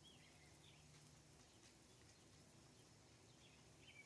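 Near silence with a few faint, short bird chirps, a couple at the start and a couple near the end.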